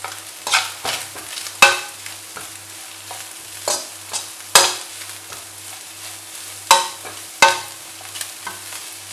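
A metal slotted spatula scraping and tossing vegetables and egg in a nonstick wok, with about seven sharp scrapes at uneven intervals over a light sizzle of frying.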